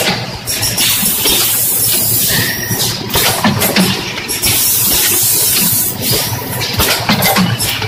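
Stand-up-pouch packaging machine running: steady mechanical clatter with repeated sharp clicks and bursts of hissing air.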